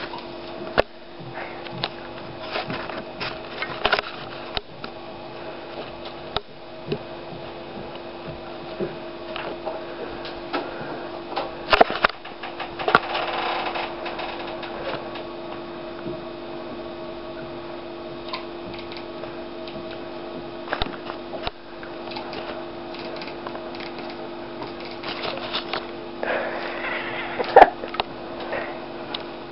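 Domestic cat chattering while watching birds: quick runs of clicking with short chirpy bursts, the excited prey-watching noise of a cat that cannot reach the birds, over a steady low hum.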